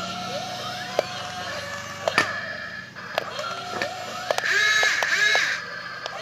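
Small motors whining up, holding a steady pitch, then winding down, several times over, with a few sharp clicks in between.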